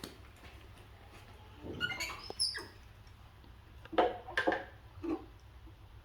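Scattered light knocks and rustles of kitchen things being handled, with a couple of brief high squeaks about two seconds in and two sharper knocks about four seconds in.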